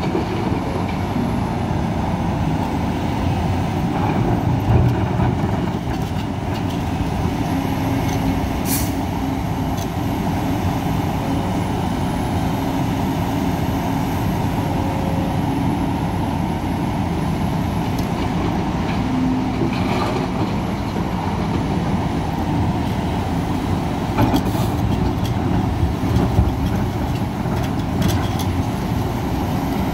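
Diesel engine of a Hidromek HMK 500LC 50-tonne excavator running under load, with its pitch rising and falling as it works while loading a dump truck. A few sharp knocks and clanks come through, near the middle and again near the end.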